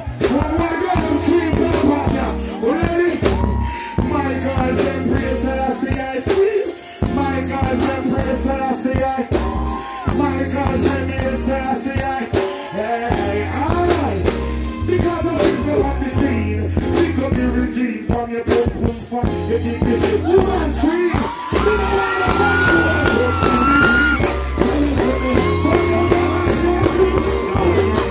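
Loud live reggae music with a heavy bass and drum beat and a voice singing over it.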